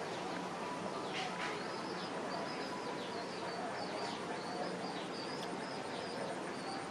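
Small birds chirping in the background: a string of quick, high chirps with falling strokes, repeating over a steady hiss.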